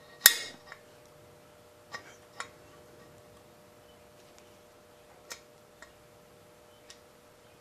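Hand-pressed center punch clicking on a broken bolt: one loud sharp snap just after the start, then several fainter ticks as the punch is set and pressed again. It is marking a centre divot so the stuck bolt can be drilled out.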